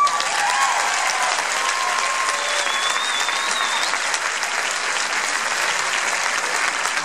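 A large church congregation and choir applauding as a song ends, with the clapping breaking out right at the start and running steadily. A few voices call out over it.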